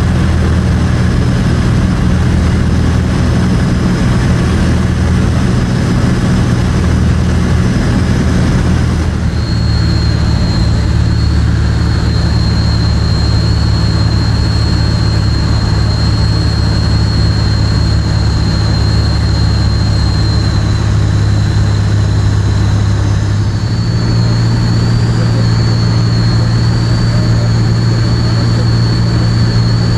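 Light aircraft's propeller engine droning steadily inside the cockpit, with a high thin whine over it. The engine note shifts about nine seconds in and rises slightly about twenty-four seconds in, on approach to land.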